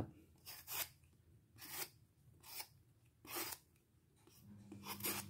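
Vegetable peeler scraping the skin off a mango in short strokes, about one a second.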